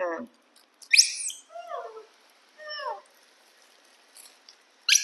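Young macaques calling: a sharp high squeal about a second in, then two falling, pitched calls over the next two seconds, and another high squeal at the end.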